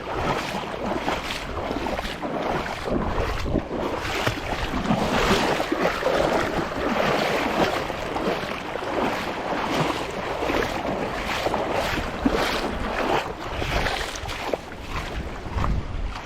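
Wind blowing across the microphone in uneven gusts, over surf washing against the rocks of a jetty.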